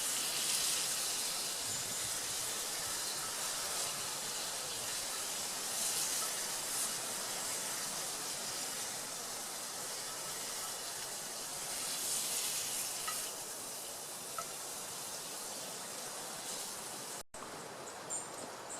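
Steady sizzling hiss of food frying in a cast iron skillet on campfire coals, swelling a little now and then and cutting out briefly near the end.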